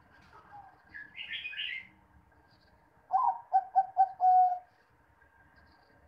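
Caged zebra dove singing its cooing song: a quick run of five short, staccato coos, the last one drawn out. About two seconds earlier there is a brief, higher chirping.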